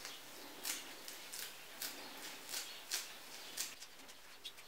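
Fresh parsley being cut by hand with a small knife over a pan: a series of soft, crisp snips about every half second.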